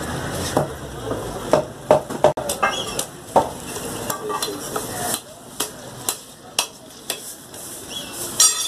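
Butcher's cleaver chopping a piece of beef on a counter: irregular sharp strikes, roughly one every half second to second, with scraping and wet cutting noises between them.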